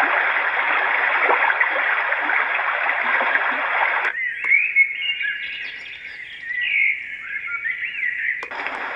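Nursal white noise machine's small speaker playing its built-in nature sounds as they are switched with clicks of the mode button. First comes a steady rain-like hiss, then, about four seconds in, birdsong chirps over a thin hiss, and near the end a switch back to a rushing water hiss.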